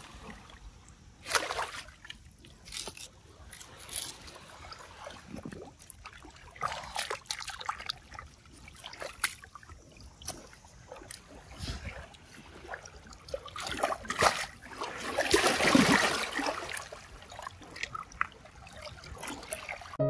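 Water splashing and trickling in irregular bursts, with a longer, louder splash about fifteen seconds in.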